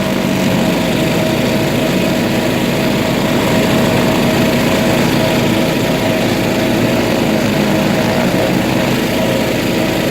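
Off-road vehicle engine running steadily at a constant pace, with a rough, buzzing drone.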